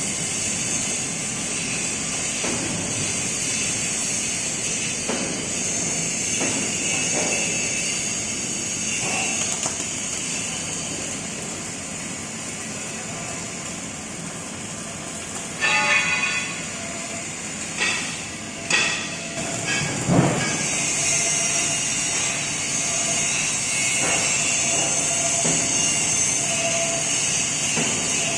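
Welding shop noise: a steady high hiss under the running welding rig, with a few loud metallic knocks and clanks a little past the middle.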